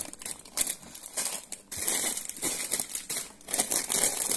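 Wrapped snack packets crinkling and rustling in the hands as they are sorted.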